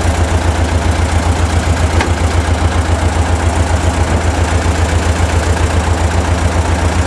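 Tractor engine running steadily with an even low throb while it powers a hydraulic log splitter. A faint click comes about two seconds in.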